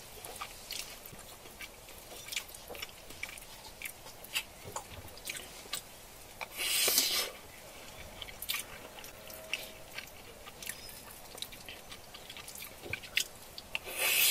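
Close-up chewing of a grilled-meat rice bowl, with many small wet mouth clicks. Two louder short hissing bursts come about halfway through and near the end.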